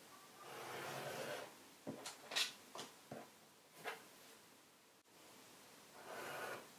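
Craft knife blade drawing through a paper pattern along a steel ruler on a cutting mat: two scratchy cuts about a second long, one near the start and one near the end, with a few light clicks and knocks between them.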